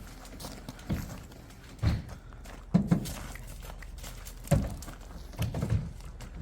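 Irregular thuds and knocks, about seven of them, over a low steady rumble: a vehicle jolting over a rough hill track.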